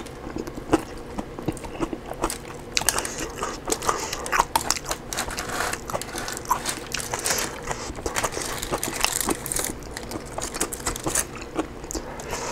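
Hands pulling apart a roasted rotisserie chicken on a foil-lined tray, heard up close as a busy run of crackles and small clicks.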